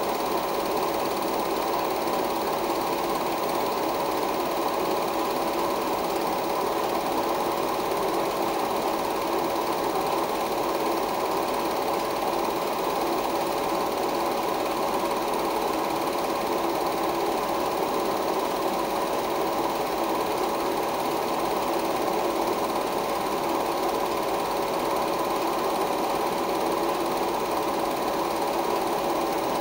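16mm film projector running steadily: an even, unbroken mechanical noise from its motor and film mechanism, with a steady tone in it.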